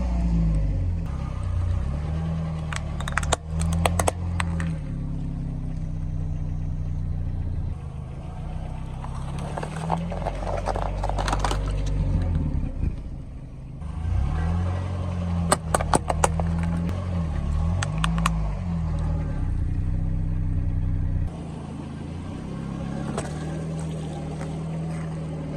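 Car engine running at low speed, its pitch rising and falling, with groups of sharp cracks and pops as the tyres crush objects several times.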